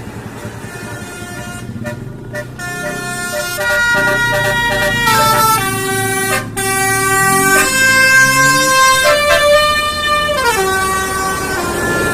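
Basuri telolet multi-tone horn playing a tune note by note, starting a couple of seconds in, several tones sounding together on some notes, with a downward slide in pitch near the end.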